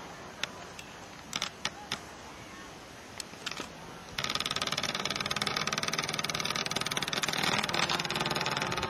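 Sharp, irregular footfalls of a pack of runners passing close on the track. About four seconds in, a loud, steady engine-like noise with a hum cuts in abruptly and covers the rest.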